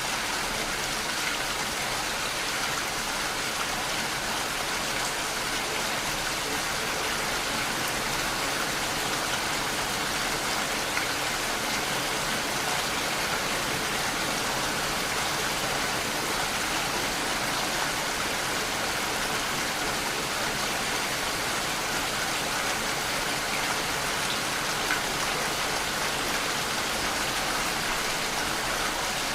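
Steady rainfall, an even hiss of drops with faint scattered pattering.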